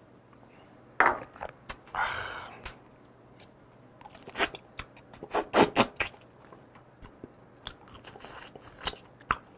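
Mouth sounds of eating soy-marinated stone crab (gejang): wet sucking and smacking at the crab shell to draw the meat out, with crunches and clicks of shell. The meat is not sucking out easily. A breathy exhale comes about a second in and again about two seconds in.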